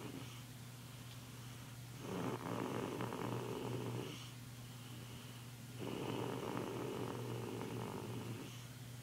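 A young child snoring in sleep: two long snores, each about two seconds, roughly four seconds apart, with quieter breathing between.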